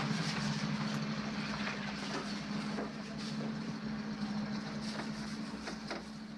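A steady engine-like hum runs throughout, with scattered short knocks and scrapes as a portable toilet's seat and bowl are wiped clean.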